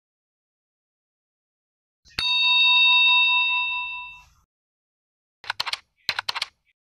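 A bright chime sound effect strikes about two seconds in, one ringing note with several pitches that fades out over about two seconds. Near the end come two short runs of quick clicks from a typing sound effect.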